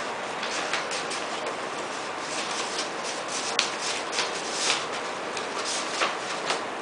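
Paper envelope and sheets being handled and opened: irregular rustling and crinkling over a steady hiss, with one sharp click about three and a half seconds in.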